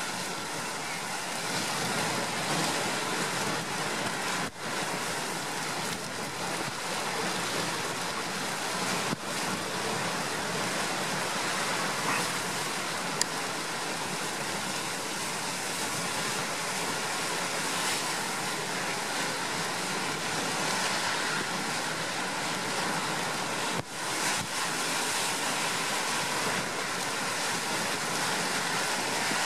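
Storm surf and gale wind: heavy waves breaking on a concrete breakwater, a steady rushing noise of wind and water with a few momentary dips.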